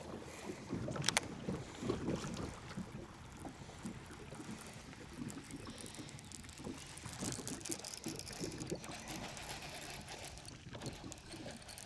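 Water lapping against a small fishing boat's hull, with a couple of sharp knocks about a second in.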